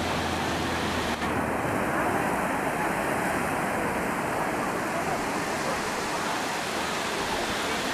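Sea surf: small waves breaking and washing up onto the sand in a steady noise.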